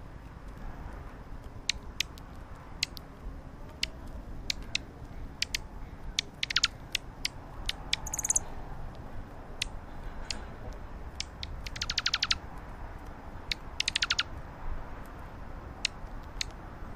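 Birds feeding right at the camera: scattered sharp clicks and taps of beaks pecking, with a few fast rattling runs of clicks and one brief high chirp about halfway through.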